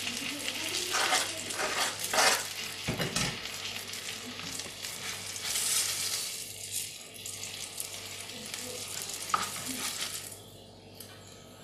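Floured perch fillets sizzling in a non-stick frying pan, with a slotted spatula scraping across the pan several times as they are lifted out. The sizzling drops away near the end.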